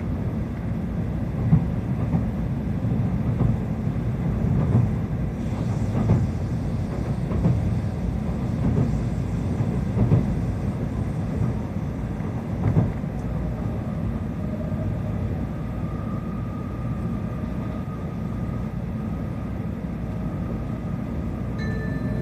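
Tokaido Shinkansen Nozomi running at speed, heard from inside the passenger cabin: a steady low rumble with dull thumps about every second and a half. Right at the end, the onboard chime melody starts up ahead of the announcement.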